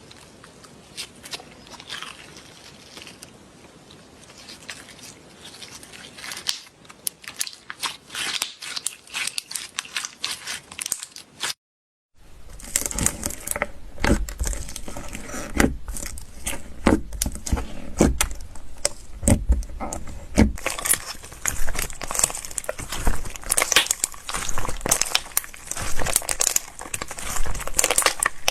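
Slime being squeezed and pressed by hand, giving dense crackling and popping. The sound cuts out for a moment near the middle, then comes back louder.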